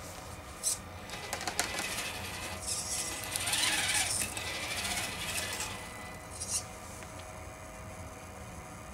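Electric RC rock crawler (Venom Creeper with a 55-turn brushed motor) working its way off a pile of rocks: a faint steady motor and gear whine under a rushing scrape of tyres on rock and snow that builds to its loudest three to four seconds in, then fades. Two short sharp clicks, about half a second in and again near the end of the scrape.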